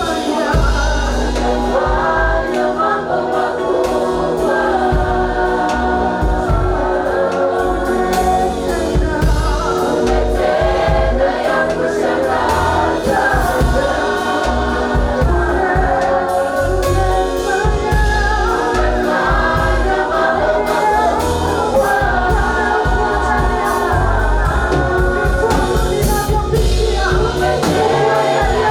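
A choir singing gospel music with instrumental accompaniment and a steady beat.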